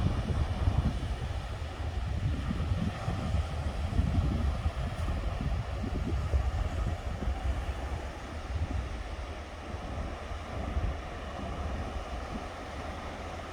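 Sea waves washing onto a sandy beach, with wind buffeting the microphone in a low, uneven rumble that eases a little in the second half.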